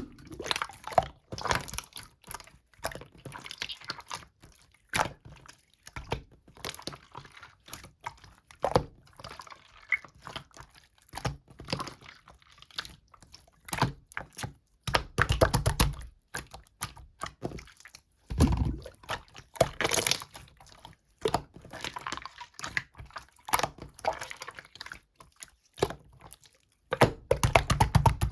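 Slime being squished and pressed by hand: wet clicks and pops of trapped air, with a few runs of quick crackling pops.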